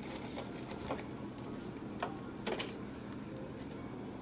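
Steady low room hum with a few light clicks and knocks of small objects being handled: one about a second in, one at two seconds and a close pair around two and a half seconds.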